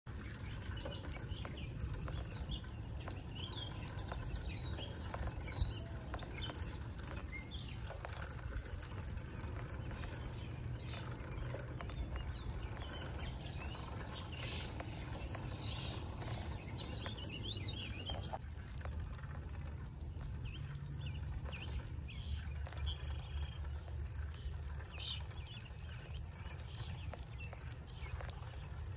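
Wind blowing across the microphone as a steady low rumble, with many short bird chirps throughout.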